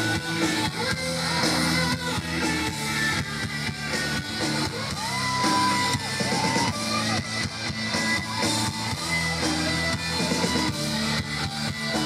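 Live rock band playing loud, with a lead electric guitar line of bent notes that glide up and down over the drums.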